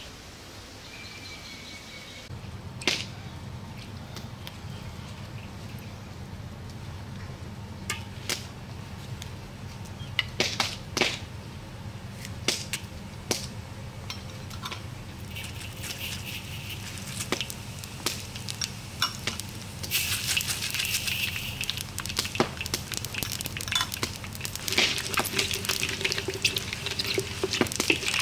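Dried red chillies frying in hot oil in a steel wok, with scattered sharp pops and crackles of spitting oil. About halfway through the sizzle grows into a louder, steadier hiss, with cumin seeds frying in the oil.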